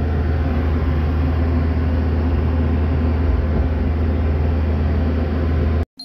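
2016 Case 580ST backhoe loader's diesel engine running steadily, heard from inside the cab. It cuts off abruptly near the end.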